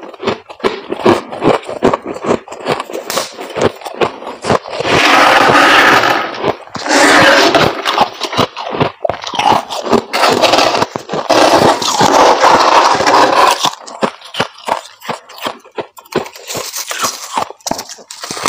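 Close-miked crunching of freezer frost being chewed, a rapid crackle of small snaps. From about five to thirteen seconds, a gloved hand scrapes thick powdery frost off the walls of a chest freezer in long, loud strokes. After that the crackling returns as the frost is gathered into a clump.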